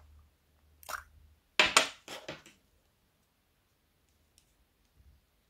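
Small plastic container being handled and opened: a single click about a second in, then a quick run of sharp plastic clicks and taps just before the two-second mark.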